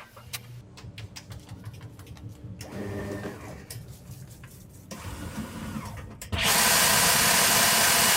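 Factory machinery clicking and humming. About six seconds in, a loud rushing hiss starts suddenly and cuts off about two seconds later.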